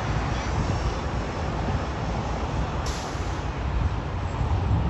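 Jet engines of a twin-engine airliner running steadily as it rolls down the runway, heard as an even noise with a heavy low rumble. There is a brief high hiss about three seconds in.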